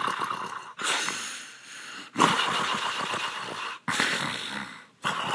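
A man's acted snoring: a series of long, noisy snores and breaths, one after another with short breaks.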